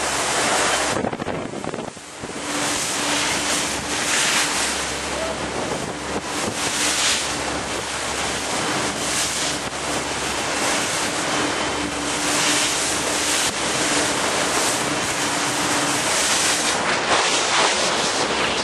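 Wind buffeting the microphone over the rush of the sea from a sportfishing boat under way in 4 to 5 foot seas, with a steady engine hum underneath. The wind noise eases briefly about two seconds in.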